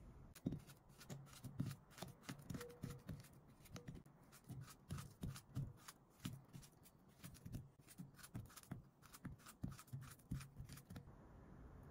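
Hands at kitchen work making a quick, irregular run of light taps and clicks, about three a second, that stops about eleven seconds in.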